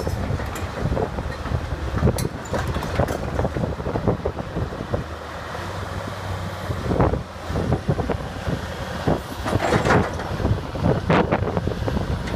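Caterpillar 320C excavator driving on its steel tracks: irregular metallic clanks of the track chain over the steady running of its Cat 3066 six-cylinder diesel engine, with louder clanks in the second half.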